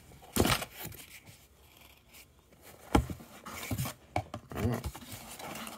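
A cardboard box and its contents being handled: rubbing and scraping, with a sharp knock about half a second in, a louder one at about three seconds, then a few lighter clicks.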